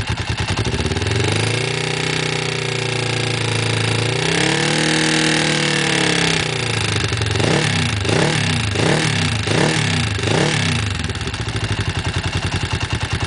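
Kawasaki GPZ motorcycle engine revved from idle: two held revs, then five quick throttle blips, before it settles back to an evenly pulsing idle.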